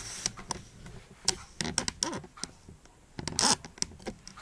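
Handling noise as a handheld camera is moved: scattered clicks, knocks and rustling, with a louder rustle about three seconds in.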